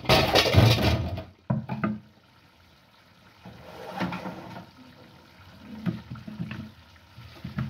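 Liquid being poured, a loud splashing rush for about the first second and a half, followed by quieter intermittent sounds.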